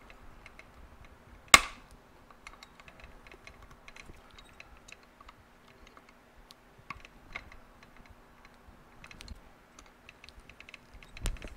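A single sharp metallic snap about a second and a half in as a keeper is pulled over into place on the motorcycle engine's parts, then scattered light clicks and taps of small metal parts being handled.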